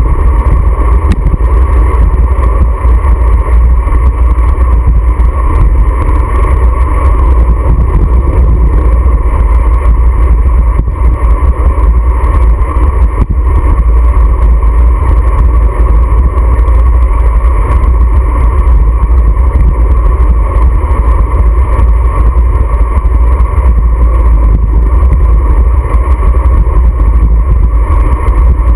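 Steady, loud wind noise buffeting a handlebar-mounted GoPro's microphone as a road bike rides along at speed.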